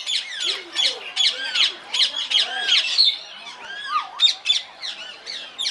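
A flock of parrots, parakeets and cockatoos squawking, many loud harsh calls overlapping in rapid succession with some rising-and-falling whistled glides.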